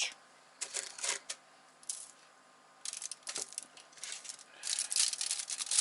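Metal fork clicking and scraping as it is dipped in sugar and pressed into peanut butter cookie dough balls. The sounds come as a series of short clicks and scrapes, with a quiet gap about two seconds in and denser scraping near the end.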